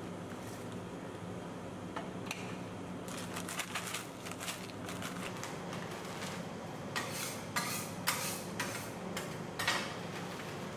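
Metal spatulas striking and scraping on the steel cold plate of a rolled ice cream pan, chopping chips into the ice cream. There is a short run of strikes about three seconds in and a denser run of sharp hits from about seven to ten seconds, over a steady low hum.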